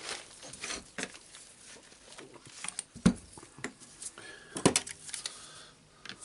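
Light clicks and knocks of small parts being handled and worked loose while a DeWalt DCS331 jigsaw's gear housing is taken apart, with a sharper knock about three seconds in and a quick cluster of clicks a little before five seconds.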